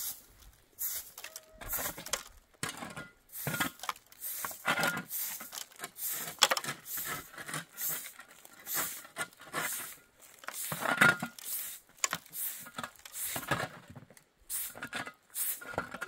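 Irregular scraping, rustling and light knocking noises, a couple of strokes a second and uneven in strength.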